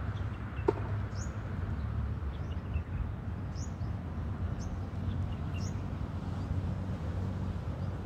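Small birds chirping in short, high notes every second or so over a steady low rumble, with one sharp tap a little under a second in.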